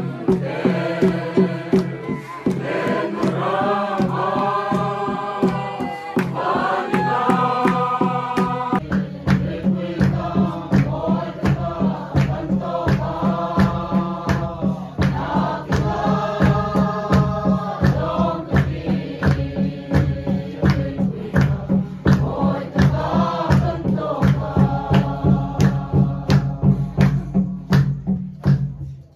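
A large group of mixed voices singing a Mizo farewell hymn together, over a steady beat of drum strokes and hand claps about two to three a second. The sound is cut off near the end.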